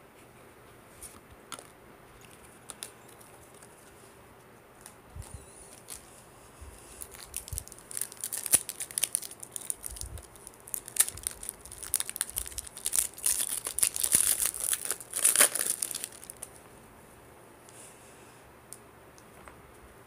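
Foil wrapper of a Topps baseball card pack crinkling and tearing as it is ripped open by hand, building from about six seconds in, loudest for the next several seconds and stopping about sixteen seconds in. A few faint ticks before and after.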